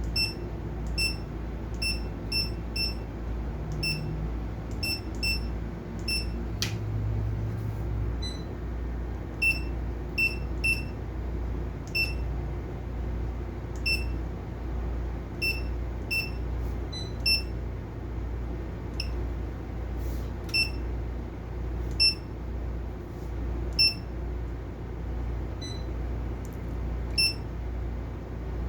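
Short electronic key-press beeps from an AIS unit's keypad as settings are entered, irregular, about one to two a second with some quick pairs, over a steady low hum.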